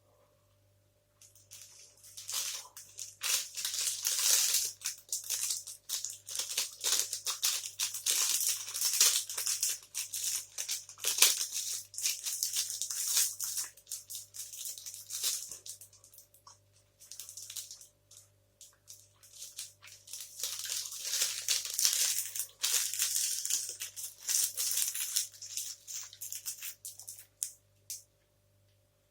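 Plastic protein-bar wrapper crinkling and rustling in two long spells of dense crackle, with a short pause between them.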